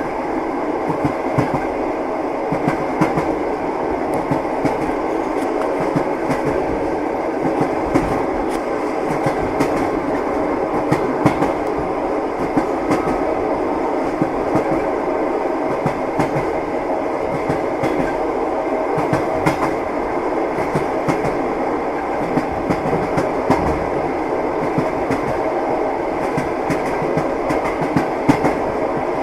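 Passenger train heard from inside a compartment car: a steady rumble of the moving carriage with the knocking of the wheels over rail joints, short knocks scattered irregularly throughout.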